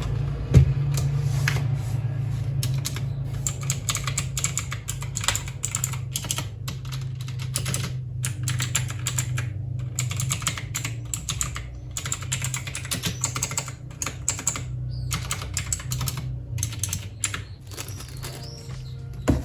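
Typing on a mechanical keyboard with Outemu Blue clicky switches: fast runs of keystrokes in bursts with short pauses between them. A steady low hum runs underneath.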